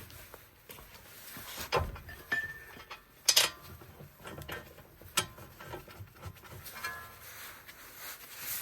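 Scattered knocks and clicks of tools and parts being handled. The sharpest knock comes about three seconds in, with faint rattling between the knocks.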